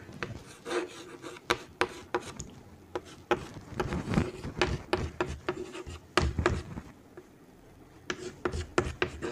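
Chalk writing on a chalkboard: quick taps and short scratching strokes as letters are formed, with a pause of about a second two-thirds of the way through.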